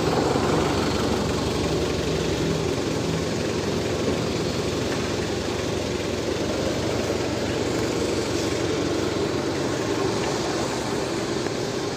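Toyota forklift's engine running steadily as the forklift drives with a load, a constant low hum.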